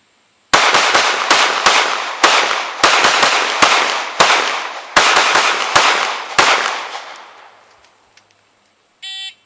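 A string of about a dozen handgun shots fired under a shot timer, spaced about half a second to under a second apart, starting about half a second in and stopping about six and a half seconds in, the last one fading out. A short electronic shot-timer beep sounds near the end.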